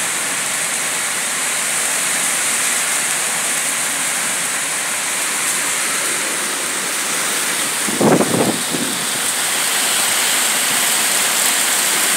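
Heavy downpour with hail: a steady, dense hiss of rain pouring down. About eight seconds in there is a brief, louder low rumble lasting about a second.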